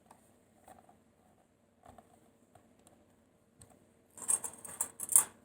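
Hands handling a small plastic camera and its packaging: a few light clicks and taps, then about a second of rustling and clattering near the end.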